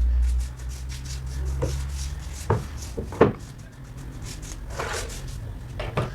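Hard wooden knocks, about five, and a brief rubbing scrape, over a low motor hum that fades out in the first two or three seconds.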